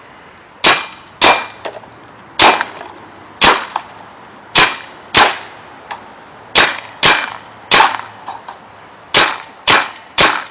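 Tippmann Alpha Black paintball marker with Cyclone feed firing about a dozen semi-automatic shots at an uneven pace, some singly and some in quick pairs, each a sharp pop.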